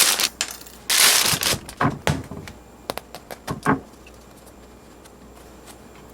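Kitchen food-preparation handling sounds: a short rustle about a second in, then several knocks and taps, with quiet room tone for the last couple of seconds.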